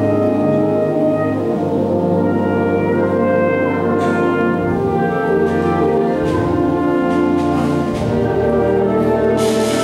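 Symphonic concert band playing held brass chords that change every second or two, with a brief bright crash near the end.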